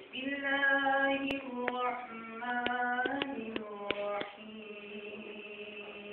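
A single voice chanting in long, drawn-out held notes that step down in pitch, in the manner of a Quran reciter opening a recitation. Several sharp clicks come during the first four seconds. From about four seconds in, one low note is held steadily.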